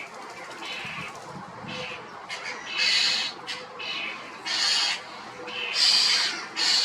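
Common starling calling: a string of harsh, rasping squawks, each about half a second long, four of them with short clicking chatter between.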